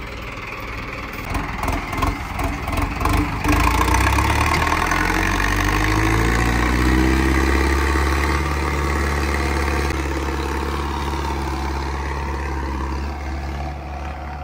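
A vehicle engine working hard under load as a stuck vehicle is hauled out of the mud. It starts with a few seconds of uneven, choppy pulses, then settles into a loud, steady engine drone whose pitch wavers slightly before slowly easing off.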